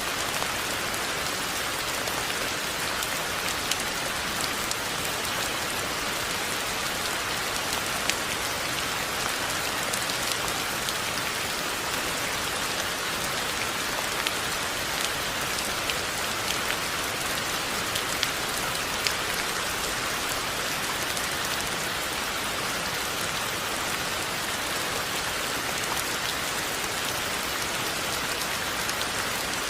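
Steady rain falling, an even hiss with scattered single drops ticking through it.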